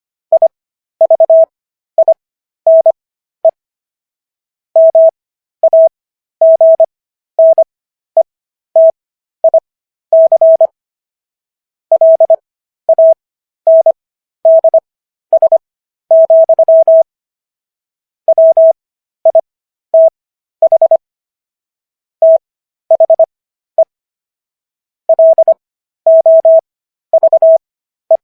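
Morse code practice audio: a single steady beep keyed on and off in short dots and longer dashes. The characters are sent at 25 words per minute, with Farnsworth spacing (longer gaps between characters and words) bringing the overall speed down to 15 words per minute.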